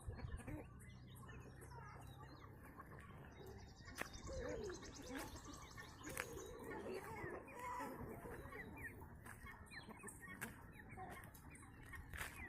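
A flock of desi chickens clucking and chirping, many short calls overlapping, with a few sharp clicks.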